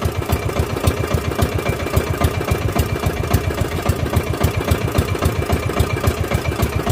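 Small outrigger fishing boat's engine running steadily under way, a rapid, even thumping beat.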